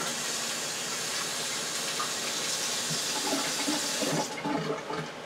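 Water running steadily from a tap while hands are washed under it, shut off about four seconds in, followed by a few splashes.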